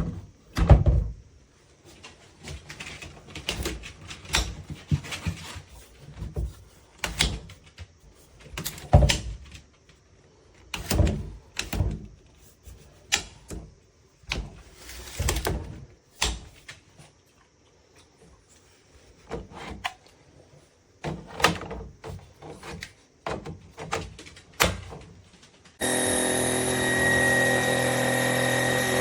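Hard plastic parts of a Trucozie cordless stick vacuum being handled, with irregular knocks and clicks. A few seconds before the end, the vacuum's motor switches on abruptly and runs steadily with a whine.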